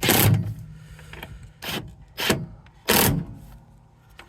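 A hand tool tightening the mounting screws of a replacement exterior door handle bracket, in four short strokes: the first and loudest at the start, then three more about half a second to a second apart.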